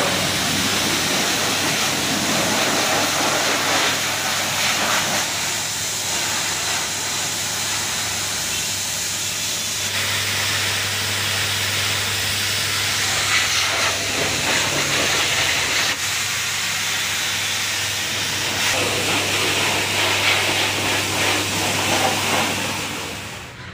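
Pressure washer spraying a motorcycle: a steady loud hiss of the water jet over the low, even hum of the washer's pump motor.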